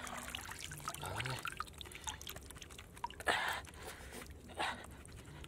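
Muddy water pouring and dripping from a woven basket into a metal basin, a spatter of drips with a louder splash about three seconds in.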